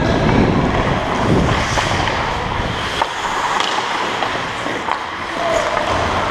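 Steady rushing noise of air over a helmet-mounted camera microphone while skating on ice, heaviest in the first half.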